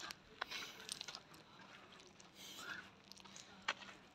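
Faint footsteps crunching and scuffing on a dry dirt path strewn with dead leaves, as irregular soft clicks, one louder near the end.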